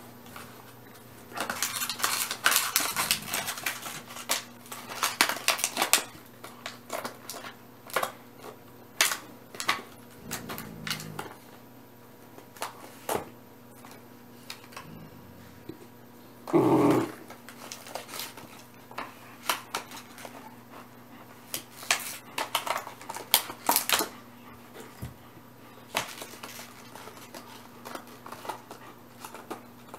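Plastic water bottle crackling and crunching as a German Shepherd puppy chews it, with scattered clicks and chewing from dogs working on toys, densest early on and again near the end. One brief, louder squeak comes about halfway through.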